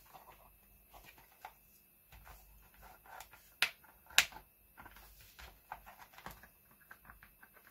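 Plastic casing of a portable cassette player being handled as its back cover is worked loose, giving scattered light clicks and taps. Two sharper snaps come about three and a half and four seconds in.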